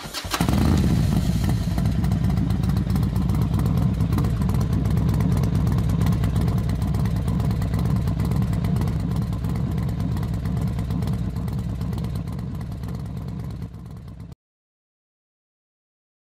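Racing motorcycle engines running loud at high revs, a continuous dense drone that ends suddenly about 14 seconds in.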